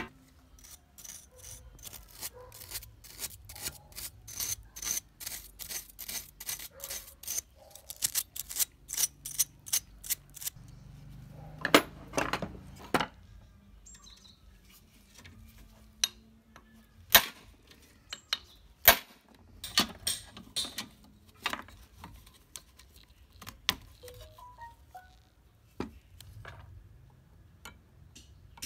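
Light metallic tapping and clinking from hand work on small engine parts: a run of steady taps about three a second, then scattered sharp clicks and knocks.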